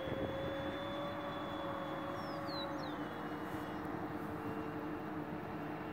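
Electric ducted fan of a Dynam Turbojet 550 RC jet in flight, a steady distant whine that drops slightly in pitch about three seconds in.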